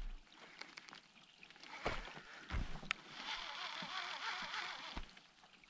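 Fishing reel being cranked as a crankbait is retrieved up to the side of an aluminium boat, a steady whir in the second half, with a few dull knocks on the hull and light clicks.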